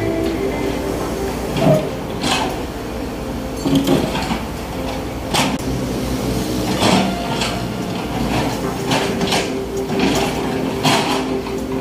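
S265 crawler excavator's diesel engine and hydraulics running steadily under load while digging, with short clanks and scrapes every second or two as the bucket and arm work through soil.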